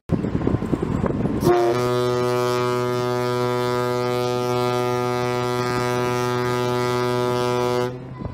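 Horn of the Washington State ferry Kitsap sounding one long, steady blast of about six seconds, starting about a second and a half in, after a low rumble.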